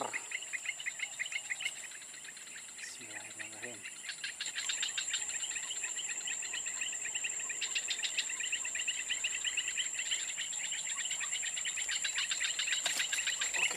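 Chorus of insects: a steady high-pitched whine with fast, rhythmic chirping beneath it that grows louder about four or five seconds in.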